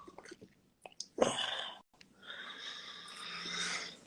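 A man wheezing with laughter: a short vocal burst about a second in, then a long breathy, wheezy exhale.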